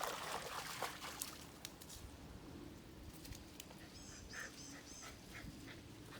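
Faint trickle of creek water, with a run of short high-pitched calls, about three or four a second, starting about four seconds in.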